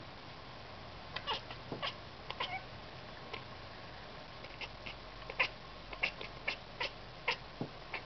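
Domestic cat chattering at birds it is watching: a string of short, high chirps and clicks in loose clusters, the loudest about five and a half seconds in.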